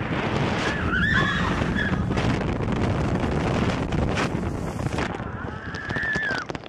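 Wind rushing over the microphone as a Mack water coaster boat runs down a drop and skims through the splash channel, sending up spray. Riders scream briefly about a second in and again near the end.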